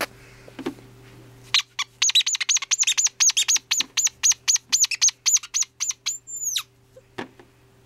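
A bird chirping: a quick, even run of high chirps at about five a second for some four seconds, ending in one longer whistle that drops steeply in pitch.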